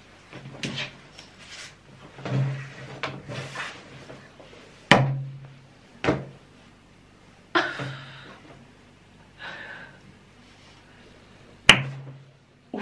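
The suction-cup base of a silicone dildo knocking against a wall as it is pressed on to stick and pulled free, with three sharp knocks about 5 s, 6 s and near the end, and softer handling rustles in between.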